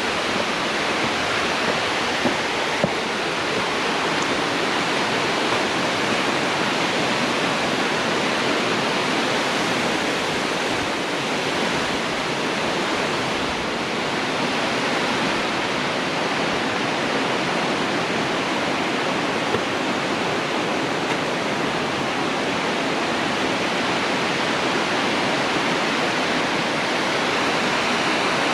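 Khandadhar waterfall's falling water making a steady, even rushing noise.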